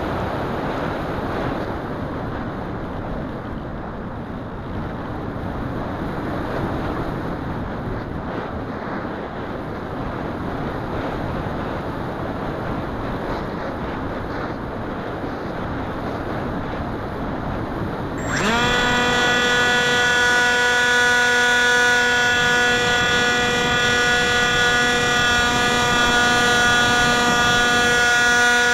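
Airflow rushing over the onboard keychain camera of a Wing Wing Z-84 flying wing in flight. About two-thirds of the way through, the plane's electric motor and propeller come in with a sudden, louder, steady whine that rises quickly in pitch and then holds: the throttle being opened.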